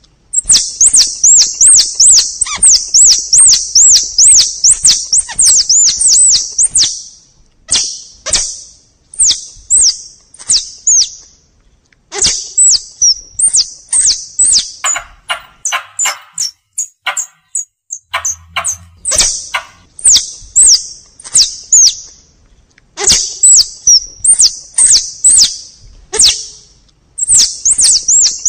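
Tupai (forest squirrel) lure call: rapid strings of sharp, high-pitched chattering chirps in bouts of a few seconds, with short pauses between bouts. It is a call played to draw squirrels in.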